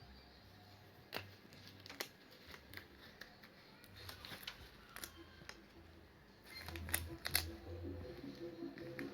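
Light handling noise: scattered sharp clicks and soft rustles, busier from about six and a half seconds in.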